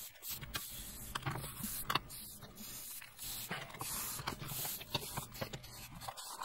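Adhesive-backed magnetic build mat being peeled off an Ender 3 Pro's heated aluminium bed, warmed to about 41 °C to loosen the glue: a run of irregular soft crackles and ticks as the mat comes away.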